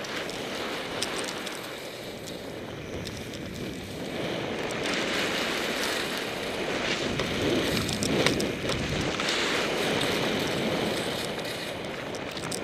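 Skiing downhill: wind rushing over the microphone mixed with the hiss of skis sliding on snow. It grows louder about four seconds in.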